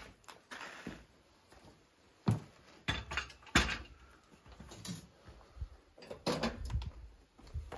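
Several sharp knocks and clatters as a thick wooden plank is set down and shifted on folding metal sawhorses, the loudest about two to four seconds in, with a few more near the end.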